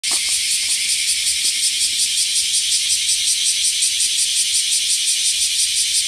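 A cicada singing: a loud, shrill, steady buzzing drone with a fast, even pulse.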